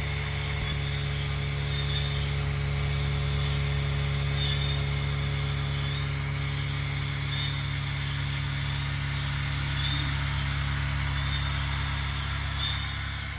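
Small DC motor running steadily, spinning a homemade mini helicopter's rotor, with a constant low hum.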